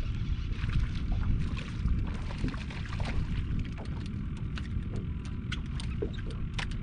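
Wind rumbling on the microphone and water lapping against a small open fishing boat's hull, with scattered sharp clicks.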